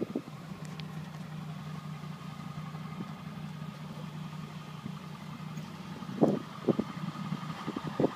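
Steady low hum of an idling engine, even throughout, with a couple of brief faint sounds about six seconds in.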